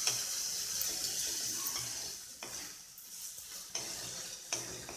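Vegetables frying in oil and sauce in a non-stick kadhai, sizzling as they are stirred and tossed with a spatula. The spatula knocks lightly against the pan a few times, and the sizzle eases off over the second half.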